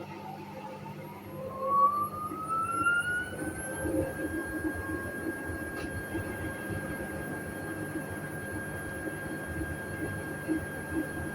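Hoover Sudslock washing machine's motor running up to speed. Its whine rises in pitch over about four seconds, then holds steady over a low hum and rumble.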